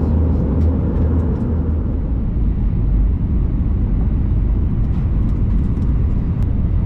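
Steady low roar of airliner cabin noise, the jet engines and airflow heard from inside the passenger cabin.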